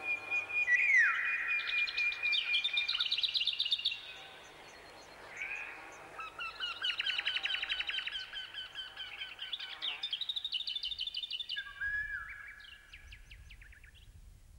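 Songbirds singing in the trees: several trilled and whistled phrases of quick repeated notes, in three bouts a second or so apart.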